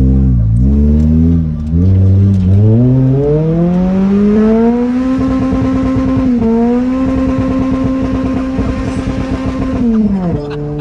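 Toyota Celica's 2ZZ-GE 1.8-litre four-cylinder engine revving: the revs dip and pick up twice, climb steadily for a few seconds, hold steady at high revs, then fall sharply near the end.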